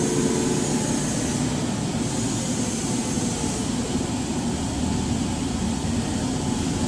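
A 48-inch Froriep vertical turret lathe running: a steady, even mechanical whir with no change in pitch.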